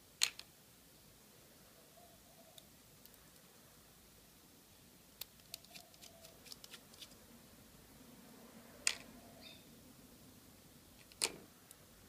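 Sharp little metal clicks and taps: a precision screwdriver tip working at the brass core of a Lockwood lockout padlock as it is taken apart. They come a few at a time: a pair at the very start, a quick cluster in the middle, and single clicks later on.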